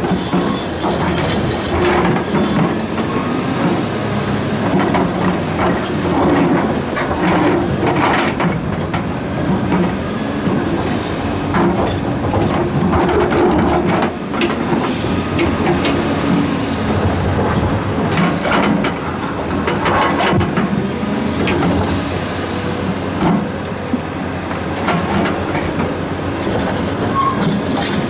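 Large excavator's diesel engine running steadily under load, with frequent knocks and scrapes of rock against rock and steel as boulders are handled and set in place.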